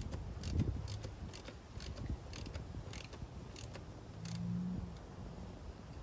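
Short sharp clicks from hand tools working on a metal chimney brace, coming roughly every half second at an uneven pace, with a brief low hum about four seconds in.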